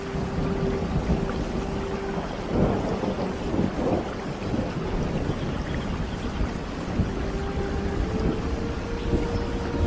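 Steady rain with thunder rumbling, heaviest a few seconds in.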